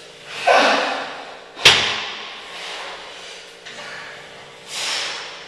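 Metal gym weights clank once, sharply, with a brief ring, during dumbbell skull crushers and cable pressdowns. Two swelling rushes of noise come about half a second in and near the end.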